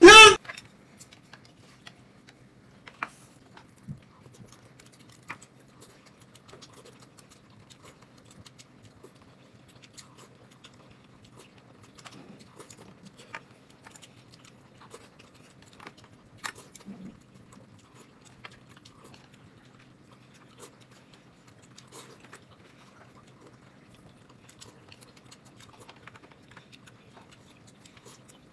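Faint close-up chewing with scattered small clicks, over a low steady hum, after a brief loud voice at the very start.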